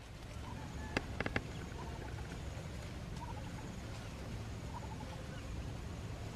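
A mother duck and her ducklings calling softly: a quick run of short sharp calls about a second in, then faint scattered calls over a steady low background rumble.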